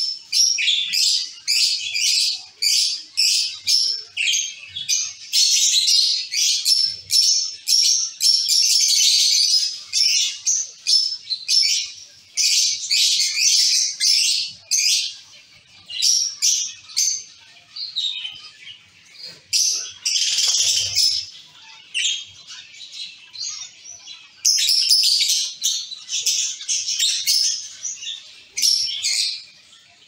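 A colony of zebra finches calling: many short, high chirps in quick succession, overlapping. They thin out briefly twice in the second half.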